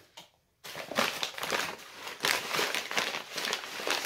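Plastic packaging and wrapped items crinkling and rustling as hands rummage through a cardboard box, starting about half a second in.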